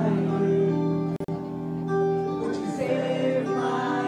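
Music with singing, with held notes and a very brief dropout just over a second in.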